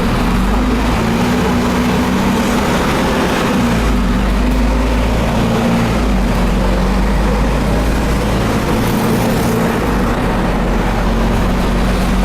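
Volvo B340M bus's 12-litre six-cylinder diesel engine running steadily, its pitch shifting slightly now and then.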